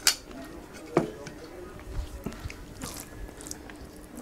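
A person eating rice and curry by hand: chewing, with the soft squish of fingers mixing rice on a plate. A sharp click comes right at the start and a knock about a second in, followed by a few lighter clicks.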